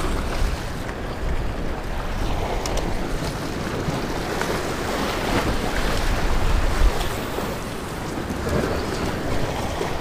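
Surf washing against the rocks of a jetty, with gusting wind buffeting the microphone in a low rumble that swells and drops.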